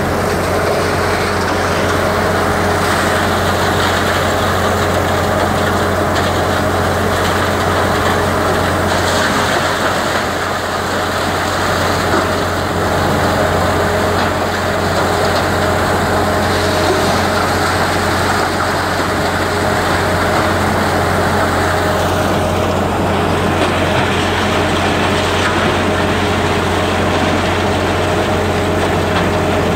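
Steady drone of heavy demolition machinery: a high-reach demolition excavator's engine running while it works, with a dust-suppression misting fan running close by. It is a constant low hum with a few steady tones over it and no sharp impacts.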